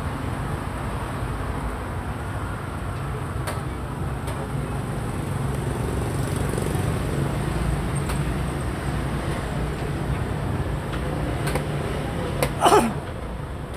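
Steady low rumble of road traffic, with a few faint clicks. Near the end comes one brief, louder sound that falls quickly in pitch, as a xiangqi piece is moved on the wooden board.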